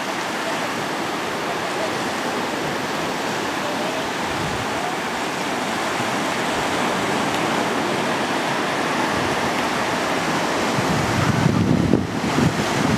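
Ocean surf breaking and washing up the beach, a steady rushing. From about eleven seconds in, wind gusts buffet the microphone with uneven low rumbles.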